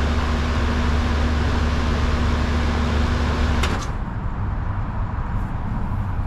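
A 2000 four-ton Lennox Elite heat pump running with a steady deep hum from the compressor over the whoosh of the condenser fan. It shuts down with a click a little over halfway through: the hum stops at once and only a quieter rushing sound is left.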